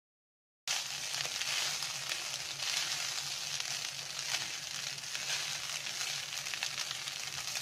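Silence for the first half second, then cooked rice sizzling steadily in hot coconut oil as it is stirred in the pan with a wooden spatula, with light scraping.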